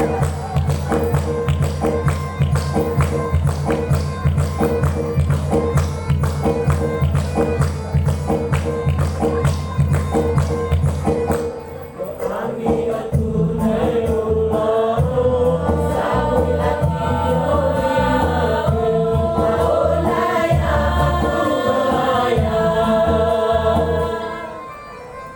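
Choir performance with accompaniment. For about the first half there is only music with a steady beat and heavy bass, then the choir comes in singing over it, and the piece ends just before the end.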